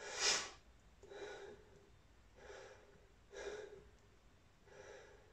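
A man breathing hard into a close microphone, five faint breaths about a second apart, the first the loudest.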